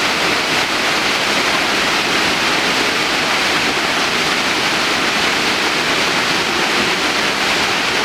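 Harvalem waterfall in full monsoon flow, a heavy torrent of water crashing onto rock in a loud, steady rush that does not let up.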